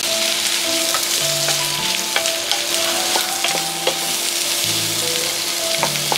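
Sliced mushrooms, bacon and onion sizzling in oil in a nonstick frying pan, stirred with a wooden spatula, with scattered sharp ticks through the steady sizzle.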